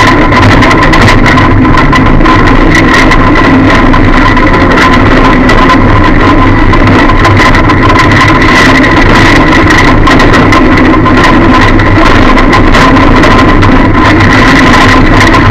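Lada derby car's engine running steadily, heard from inside the cabin and so loud it is heavily distorted, with a steady high whine over it and a rattle of rapid knocks throughout.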